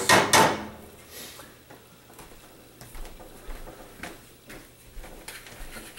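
A wooden spoon knocking and scraping in a steel pot for a moment, then the faint sizzle of chopped onions sautéing in olive oil, with a few scattered pops and ticks.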